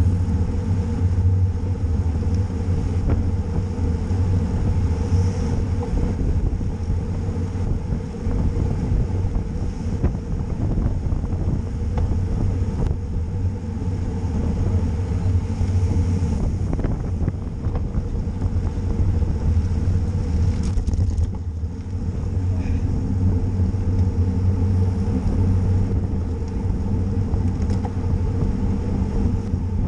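Steady low wind and road rumble on a camera carried on a racing bicycle at speed.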